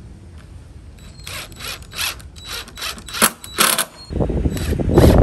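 A cordless drill driving deck screws through a galvanized hurricane tie into pressure-treated 2x4 framing. A run of sharp clicks about three a second comes first, then about four seconds in the drill runs steadily and louder as a screw goes in.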